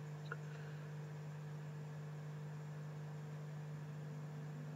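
Steady low electrical hum with a light hiss, the background noise of the recording between narration, with one faint click shortly after the start.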